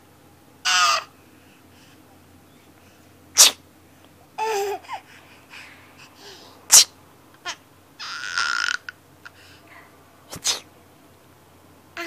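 An adult sneezing sharply three times, with a baby's high-pitched squealing laughs following the sneezes.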